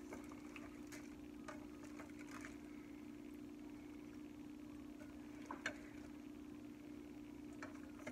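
Faint clinks and scrapes of a metal spoon against a plate and inside a slow cooker as cooked pork is lifted out. The clinks are scattered, with the loudest about five and a half seconds in, over a steady low hum.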